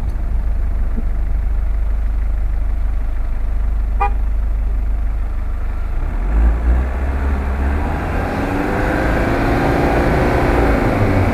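Off-road 4x4 engine running with a steady low rumble, then revved, its pitch rising and falling over the last few seconds. A brief short pitched blip comes about four seconds in.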